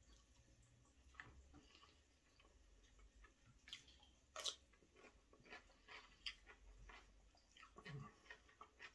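Faint chewing and mouth sounds from a person eating, with scattered light clicks of a metal fork on a plate; the sharpest click comes about four and a half seconds in.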